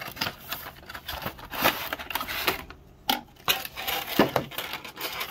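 Cardboard figure box and clear plastic blister tray being handled as the tray is slid out of the box: an irregular string of light crackles, clicks and scrapes.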